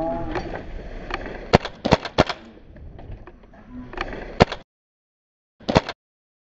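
Airsoft rifle firing single shots: a VR16 with a Wolverine SMP high-pressure-air engine. There are about six sharp cracks in the first four and a half seconds, then the sound cuts off abruptly to silence, and one more short crack comes near the end.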